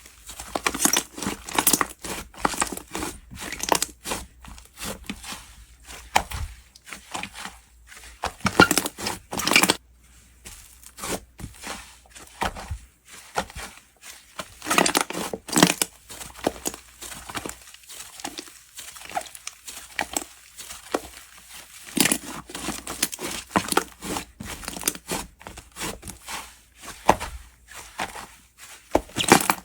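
Hands squishing, stretching and pulling apart a slime, making irregular wet crackling and tearing sounds in bouts with short lulls between them.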